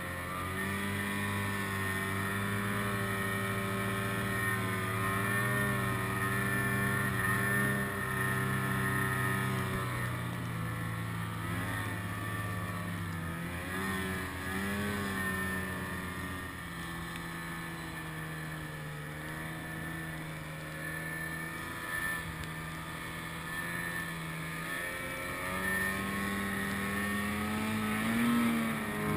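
Snowmobile engine running through deep powder, its pitch rising and falling as the throttle is worked, with a short rev near the end.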